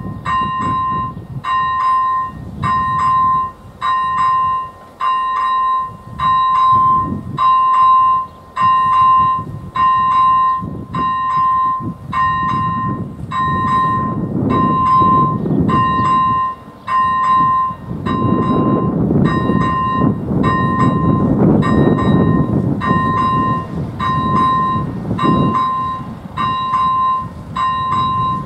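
Level-crossing electronic bell (AŽD ZV-01) dinging steadily about once a second, sounding the warning that a train is approaching. A low rumble swells in the middle and later part.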